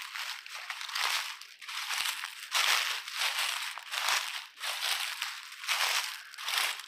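Footsteps crunching through dry fallen leaves at a steady walking pace.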